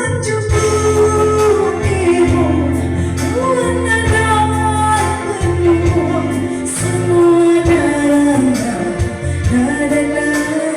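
A song: a singer's voice carrying a melody over a band with a strong, steady bass line.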